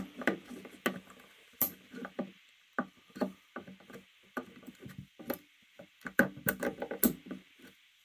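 Flat screwdriver tip of the Giriaitus 7-in-1 multitool clicking and scraping against staples in a pine board as it pries them up, in many irregular short taps and scrapes.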